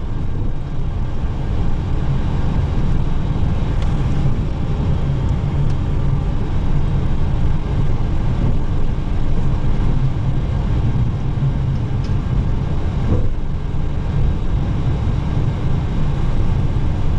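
Steady low rumble of the Boeing 737-800's running CFM56-7B turbofan engines and airframe, heard from inside the cockpit.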